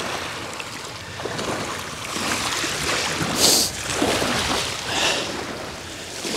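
Small waves lapping and washing over a shingle beach at the water's edge, swelling about once a second. A sharp splash of water about three and a half seconds in, and a smaller one about a second later.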